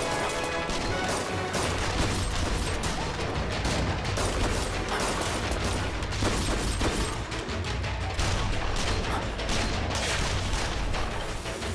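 A gunfight: a rapid, continuous volley of gunshots and bullet impacts over background music.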